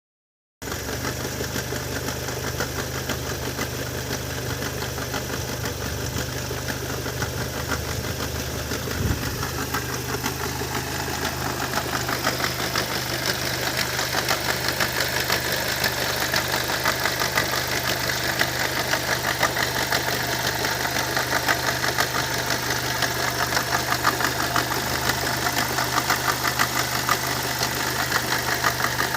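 Opel Vectra C's Z20NET 2.0-litre turbo four-cylinder petrol engine running steadily with a rapid ticking, knocking noise over its hum, which the owner finds strange. The ticking grows louder about twelve seconds in.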